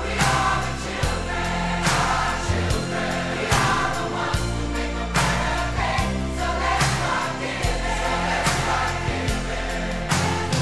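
Background music: an instrumental passage of a choral pop song, with a steady bass line, held chords and a regular beat.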